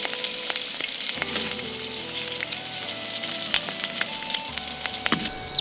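Food frying and sizzling in a hot pan, a steady hiss broken by scattered sharp clicks of a utensil stirring. Near the end the sizzling cuts away.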